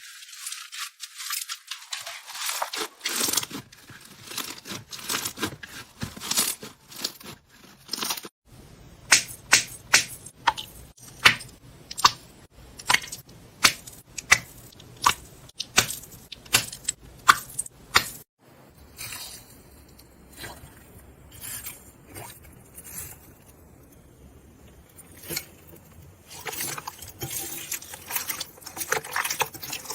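Slime being handled and pressed, making sticky crackling and a string of sharp pops and clicks; through the middle the pops come evenly, about two a second.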